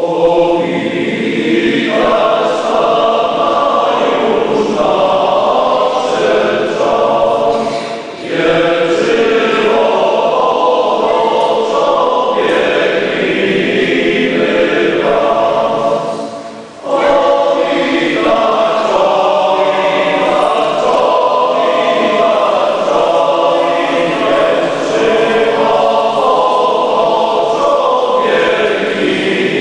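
Male choir singing a Polish Christmas pastorałka in sustained chords, with short pauses between phrases about eight and sixteen seconds in.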